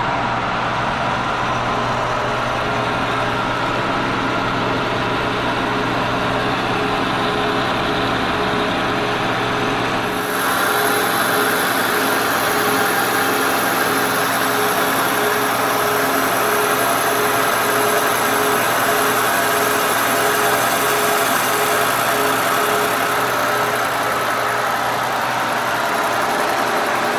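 Kearney & Trecker milling machine running steadily while a Tungaloy carbide face mill takes a light skim cut across a cast iron fixture plate. About ten seconds in, a brighter, higher hiss joins the machine's drone and holds steady.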